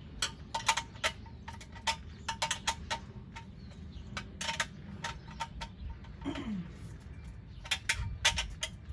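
10 mm wrench clicking and clinking against a steel bolt on a small engine's blower housing as the bolt is tightened: a string of sharp, irregular metallic clicks.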